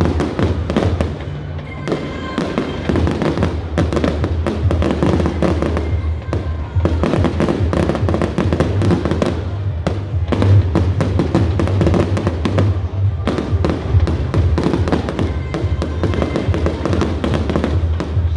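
Aerial firework shells bursting in a rapid, continuous run of bangs and crackles, with music playing under the explosions.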